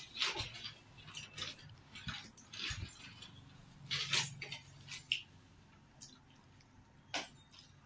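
Eating sounds: an irregular scatter of short, crisp clicks and rustles from chewing and from handling food, with small clinking touches.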